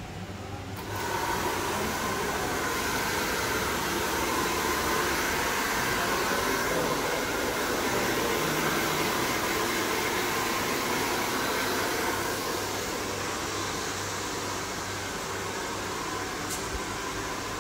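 Handheld hair dryer switched on about a second in, blowing steadily, a little quieter for the last few seconds.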